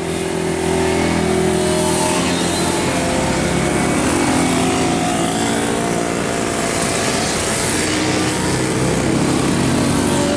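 Bus engine running steadily, its pitch drifting slightly, over a steady hiss of rain.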